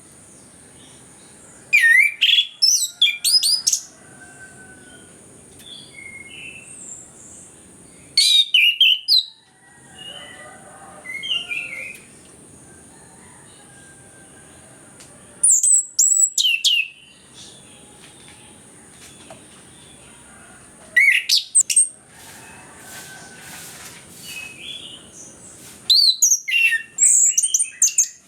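Chestnut-capped thrush (anis kembang) singing: five loud phrases of rapid, sweeping whistled notes, each lasting a second or two and coming every five or six seconds, with soft quiet notes in between. A faint, steady high hiss runs behind the song.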